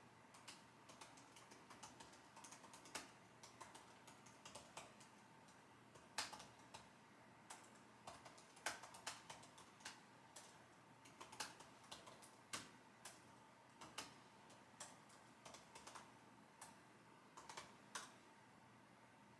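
Computer keyboard typing: irregular runs of keystroke clicks, some keys struck harder than others, pausing briefly now and then and stopping shortly before the end.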